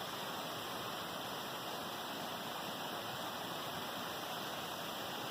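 Faint, steady rush of a small waterfall running at the bottom of a deep gorge below.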